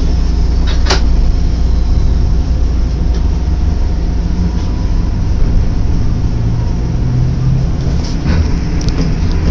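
Randen streetcar heard from inside the car while running along street track: a steady low rumble of wheels on rail and running gear. There is a sharp click about a second in and a few lighter clicks near the end.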